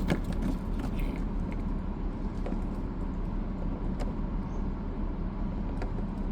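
Steady low hum of a car heard from inside the cabin, with a few faint clicks scattered through it.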